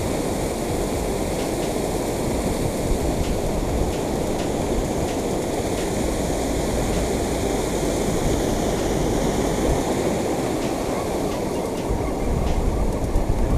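Water pouring over a concrete dam spillway and churning in the pool below: a steady, unbroken rush.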